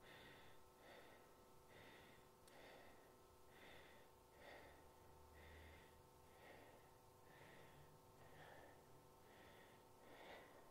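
Faint, quick, even breathing of a woman straining through a wall sit, about one breath every second, over a faint steady hum.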